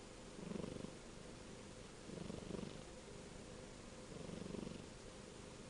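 Kitten purring, the purr swelling with each breath about every two seconds.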